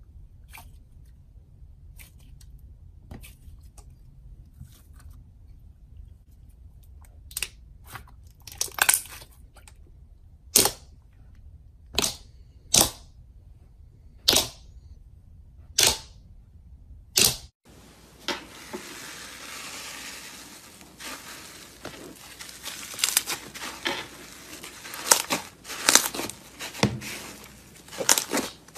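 Hands squeezing and pressing glossy slime, giving sharp pops of trapped air, faint and sparse at first, then louder about every second or two. About two-thirds of the way in this changes abruptly to dense, steady crackling as a hand kneads textured slime in a plastic tub.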